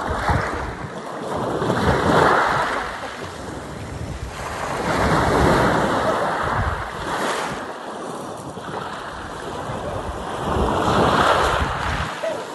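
Sea surf breaking and washing up a sandy beach, the noise swelling and fading in three surges as waves come in.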